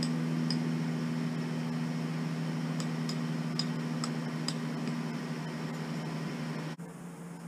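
A steady low mechanical hum with faint, scattered high clicks over it. The hum cuts off abruptly near the end and the level drops.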